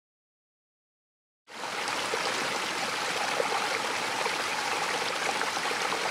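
Running stream water, a steady babbling rush with fine trickling detail, starting abruptly about a second and a half in: an ambience sound effect.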